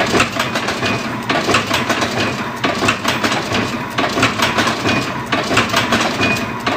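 A strip-weaving machine running with a fast, dense metallic clatter, with a few brief high squeaks.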